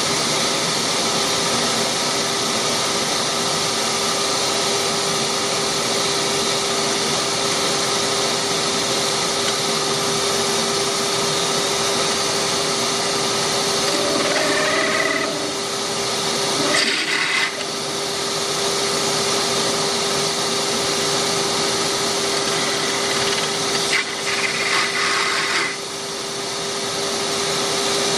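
Delta wood lathe running steadily with a constant motor hum and hiss while a pen blank is worked on it. Twice, a little past halfway and near the end, the sound changes briefly with higher squealing tones as the cutting tool works the spinning blank.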